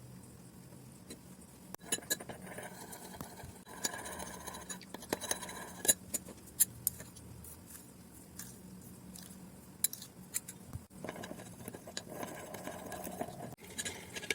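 Small clicks, taps and scrapes of utensils and containers being handled while slime ingredients are prepared, coming irregularly, with a faint steady low hum underneath.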